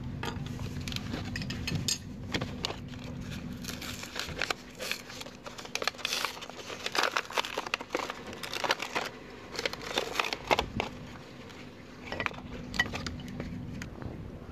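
Packaging of a new motorcycle brake pad crinkling and tearing as it is opened by hand, in irregular crackles that thin out near the end.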